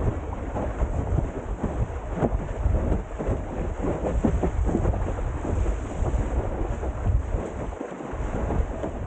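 Wind buffeting the microphone in a low, steady rumble over rushing water, as a Windsurfer LT board skims over choppy sea. Irregular slaps and spatters of water against the hull and spray run through it.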